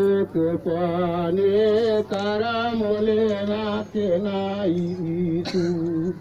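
A single voice chanting a traditional ritual chant in long held, wavering notes, in several phrases with short breaks between them. A brief sharp click about five and a half seconds in.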